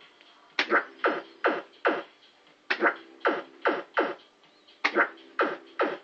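Maygay Cash Gordon fruit machine's electronic sound effects as it spins its reels three times. Each spin brings a quick run of four or five sharp, pitched blips that sweep downward.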